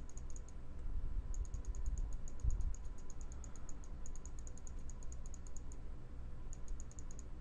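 Fast, even clicking at about eight ticks a second, in three runs that pause briefly, over a faint low hum: a computer mouse being worked while sculpting at the desk.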